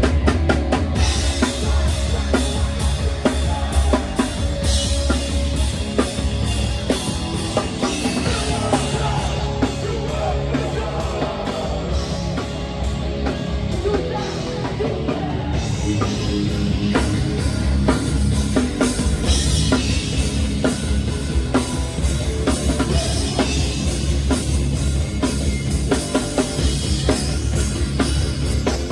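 Hardcore punk band playing live and loud: fast drum kit with electric guitar and bass through the club PA.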